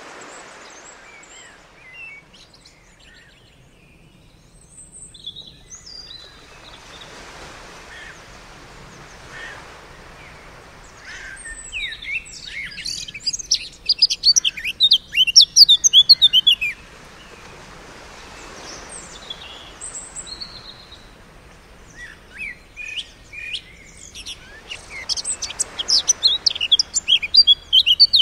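Small songbirds chirping and trilling, thickening into a loud burst of song about halfway through and again near the end, over gentle surf that swells and fades every few seconds.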